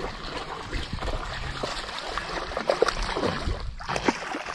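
Creek water splashing and trickling in irregular bursts as a hooked smallmouth bass is reeled in and thrashes near the surface, easing off near the end.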